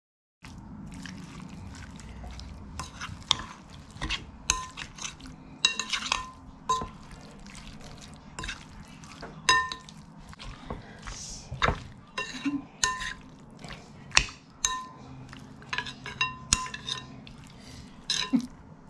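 Metal spoon clinking against a glass mixing bowl while stirring sliced raw beef coated with cornstarch for a marinade: irregular ringing pings, about one or two a second, over a low steady hum.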